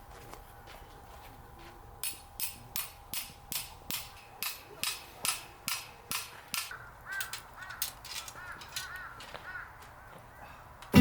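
A regular run of sharp, crisp strikes, about three a second, starting about two seconds in and fading after about five seconds, followed by a few short high calls.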